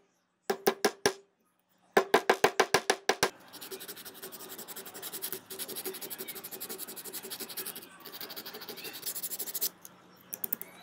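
Fast series of hammer blows on a thin metal plate resting on a round steel block, the block ringing under each strike, in two quick runs. Then a long stretch of rapid scratchy rubbing of metal on metal that stops suddenly, with a couple of light clicks near the end.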